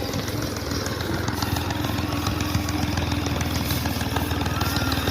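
Motorcycle engine running steadily, with a rapid even beat of firing pulses.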